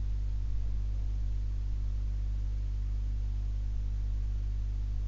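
Steady low hum with several overtones that holds unchanged throughout, over faint room hiss.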